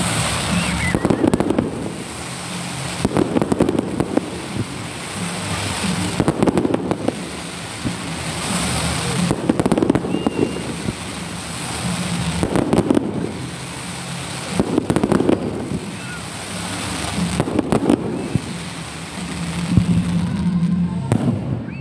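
Fireworks going off in a steady series, a bang about every two to three seconds, with continuous hissing and crackling from the burning stars and sparks.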